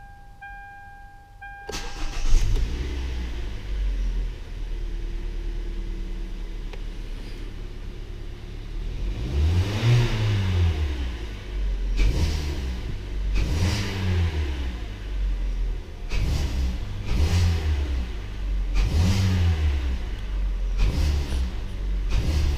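A warning chime beeps steadily, then about two seconds in the Hyundai Elantra's 1.8-litre four-cylinder engine starts and idles. From the middle on it is revved repeatedly, each rev rising and falling in pitch.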